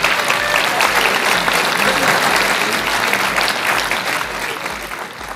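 Large audience applauding and laughing in a conference hall, a dense patter of many hands clapping that fades away near the end.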